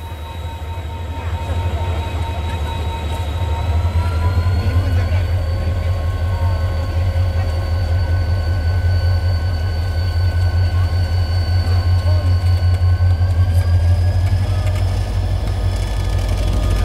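Korail diesel locomotive's engine rumbling as it hauls a train along the platform, growing louder as it draws near. Steady whines sit above the rumble and rise in pitch twice, about four seconds in and near the end.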